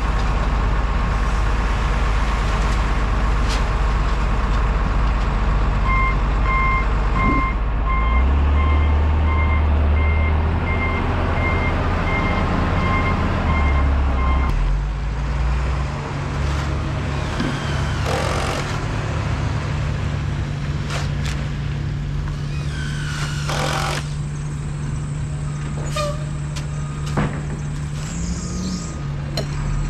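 Heavy truck engine running, with a reversing alarm beeping from about six seconds in to about fourteen seconds in. The engine then settles to a steady idle, with a few knocks and rattles.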